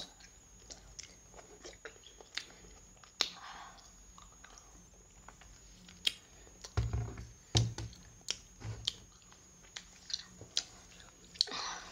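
A child chewing and biting sour candy close to the microphone, with scattered light clicks and a few dull low thumps about seven to nine seconds in.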